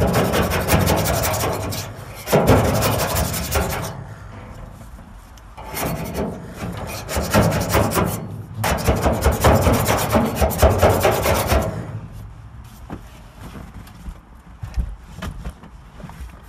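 Hand scraper rasping old sound-deadening material and glue off a car's bare steel roof panel in fast, repeated strokes. It comes in three long bouts of scraping, and from about twelve seconds in only light scattered scrapes and taps remain.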